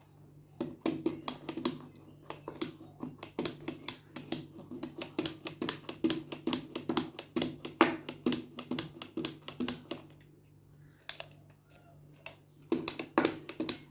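Rapid tapping and clicking on a hard object, about six sharp taps a second, running for about nine seconds, then a short burst of taps near the end.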